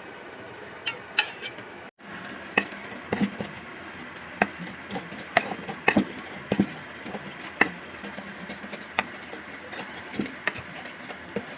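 Kitchen utensils clinking and knocking against dishes, in irregular single clicks over a steady background hiss, with an abrupt cut about two seconds in.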